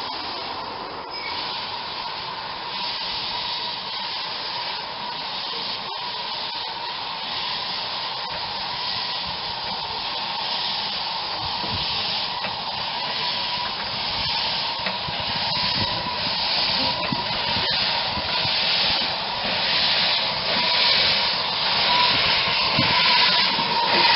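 Metre-gauge steam locomotive blowing steam from its open cylinder drain cocks: a loud, steady hiss that grows louder and pulses in the second half as the engine moves.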